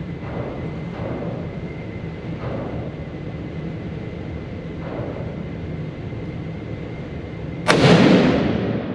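A single .30-06 rifle shot from a Savage 110 High Country, sudden and loud near the end, its echo dying away over about a second in the enclosed indoor range. Before it there is a steady background hum with a few faint, muffled thumps.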